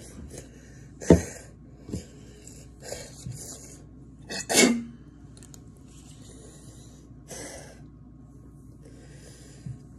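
A person coughing and sputtering in sharp fits, the loudest about a second in and about four and a half seconds in, with breathy hissing exhales in between. It is the throat-burning reaction to a dab of Mad Dog hot sauce.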